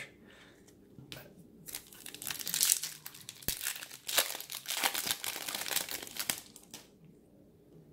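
Foil wrapper of a Wacky Packages sticker-card pack crinkling as it is torn open and pulled apart by hand: a run of crackling that starts about two seconds in and dies away near the end.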